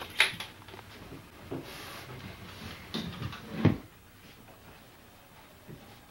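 Handling noises from a folding bicycle being wrapped in foam padding: a few knocks and clatters of the metal frame and parts, one just after the start and a louder one at about three and a half seconds, with light rustling between, then quieter.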